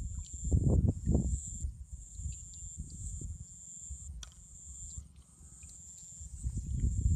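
Hands splashing and sloshing in shallow muddy ditch water while groping for fish, strongest in the first second or so and again near the end, quieter in between, with one sharp tick about four seconds in. A steady high-pitched insect chirring runs underneath.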